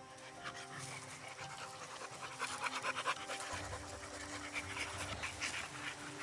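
American Bully XL dog panting quickly and rhythmically after hard play, the breaths growing loudest around the middle.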